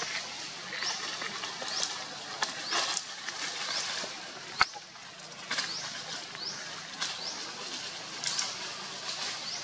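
A short rising chirp repeats about every two-thirds of a second over a steady background hiss. A single sharp click about halfway through is the loudest sound.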